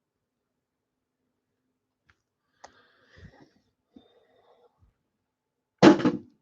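A few faint clicks and rustles of cards and packaging being handled, then a short, loud burst of noise near the end.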